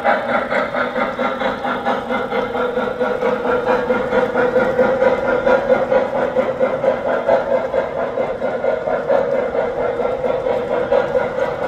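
Lionel O-gauge model freight cars rolling along metal track: a steady rumble with a rapid flutter of wheels running over the rails.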